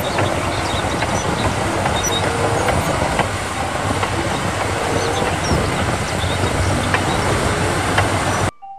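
Large crawler bulldozer pushing a load of dirt: its diesel engine running with the clanking of steel tracks, cutting off suddenly near the end.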